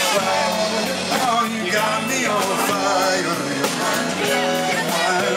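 Live rock band playing an instrumental passage: electric guitars, bass guitar and a drum kit with cymbals, steady and loud.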